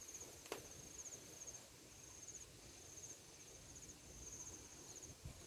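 Insects trilling faintly, a high pulsing trill repeated in short bursts about once a second, with one brief click about half a second in.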